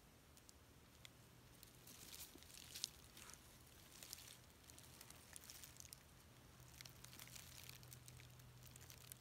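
Near silence: faint crackling and rustling of dry leaves and brush underfoot, with one sharper snap about three seconds in, over a faint low steady hum.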